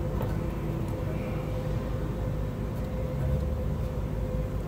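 A steady low mechanical hum with a thin constant tone running through it, unchanging throughout.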